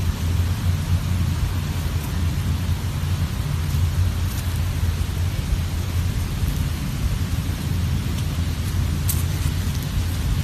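Steady wind noise buffeting the microphone: a low rumble with an even hiss over it.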